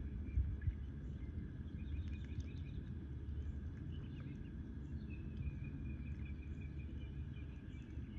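Ducklings peeping softly now and then, with a longer even trill in the middle, over a steady low rumble of outdoor noise. Two short knocks sound just under a second in.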